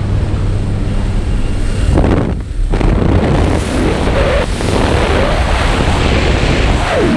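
Loud rush of wind at the open door of a small single-engine jump plane in flight, buffeting the microphone, with the engine and propeller droning underneath. The rush drops briefly about two seconds in, then comes back.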